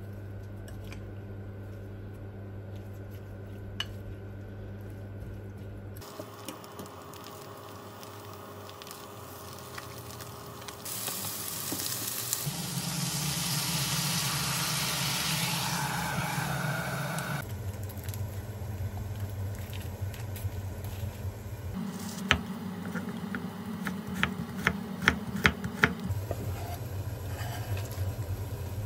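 Water poured into a hot frying pan of chicken wings hisses and sizzles loudly for about six seconds around the middle, the pan being turned to steam-frying. Quieter kitchen sounds come before it, and a run of sharp knocks near the end.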